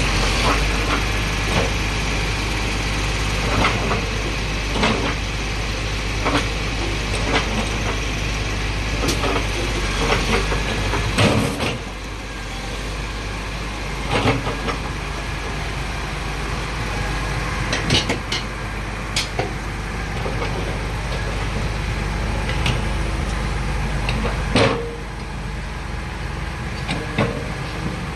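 Caterpillar 307.5 mini excavator's diesel engine running, with scattered clanks and knocks. The engine note drops a step about twelve seconds in and again near the end.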